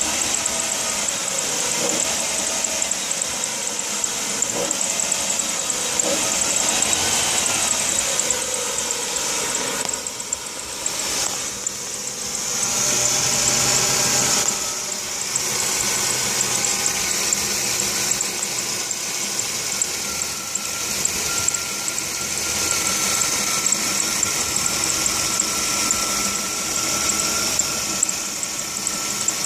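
Chrysler Concorde's drive belt squealing continuously over the running engine, a sign of a belt problem. The high squeal wavers in pitch for the first several seconds, then holds steadier.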